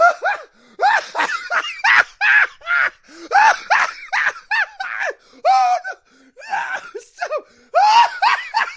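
People laughing in repeated short bursts.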